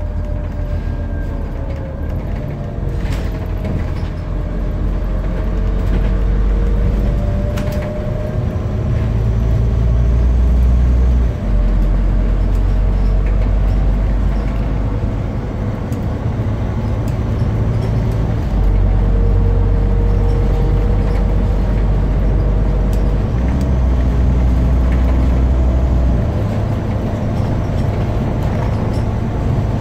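Inside a Scania CN230UB single-deck bus under way: the engine drones low and strong, swelling and easing as the bus pulls, with a sudden brief drop about eleven seconds in. A driveline whine slides up and down in pitch, and a few short knocks and rattles come from the body.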